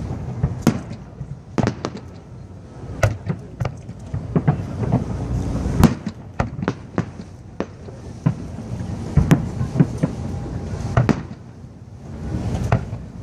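Aerial fireworks display: a rapid, irregular series of sharp shell bursts over a continuous low rumble, with the loudest bangs about six and nine seconds in.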